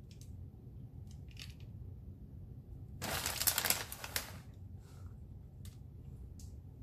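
Plastic bag of shredded Monterey Colby cheese crinkling as it is handled, loudest for about a second starting about three seconds in, with faint scattered rustles and ticks around it.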